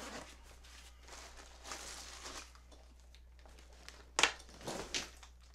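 Nylon tripod carrying bag rustling and crinkling as a tripod is drawn out of it, with a sharp knock about four seconds in, followed by a few more scuffs.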